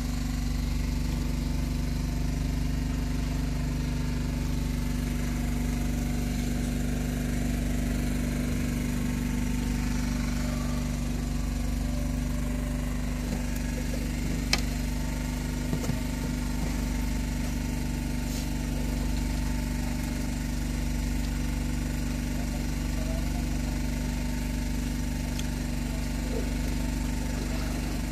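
An engine aboard a fishing boat running steadily at constant speed, an even hum. A single sharp click about halfway through.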